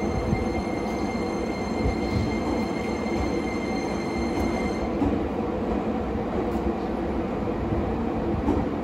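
JR Kyushu 885 series electric train pulling away slowly from the stabling track: a steady rumble of the train running, with a thin high whine that stops suddenly about five seconds in.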